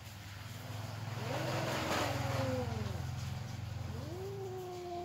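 Cats yowling at each other in a face-off, one drawn-out wavering call about a second in and another rising near the end. Under them a passing motor vehicle swells and fades, loudest around the middle.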